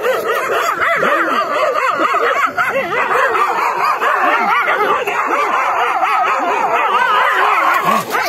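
Several dogs barking and yelping without a break, a dense din of many overlapping, wavering cries as they fight and attack.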